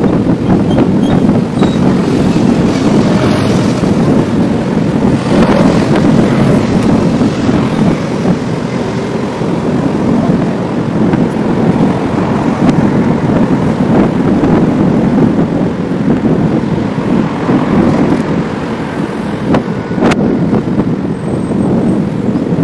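Steady wind rush on the microphone of a handlebar-mounted camera on a moving bicycle, with city traffic running underneath.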